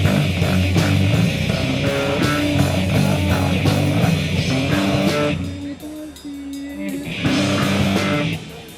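Rock band playing an instrumental passage with guitar, bass and drums, no singing. About five seconds in the band drops back to a few low held notes, comes back in full, and drops out again near the end.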